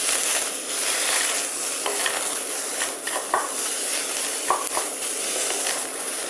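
Sprouted soybeans being stirred with a spatula in a hot, dry wok with no oil, sizzling steadily with occasional short scrapes and clicks of the spatula against the wok. The dry-toasting drives off the beans' own moisture and their raw, grassy taste.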